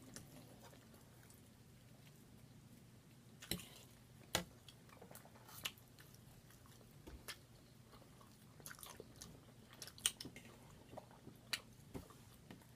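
Quiet mukbang chewing and mouth smacking close to the microphone, with short sharp smacks every second or two over a faint low hum.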